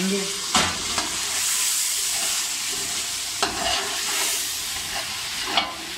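Chicken and tomato masala sizzling in an aluminium pot while a spoon stirs it, with a few sharp scrapes and knocks of the spoon against the pot: twice in the first second, once near the middle and once near the end.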